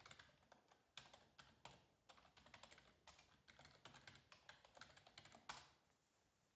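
Quiet typing on a computer keyboard: a quick run of keystrokes with short gaps, ending about five and a half seconds in with one louder keystroke.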